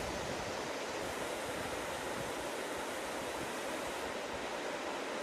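The Laba River's water rushing: a steady, even noise that does not break.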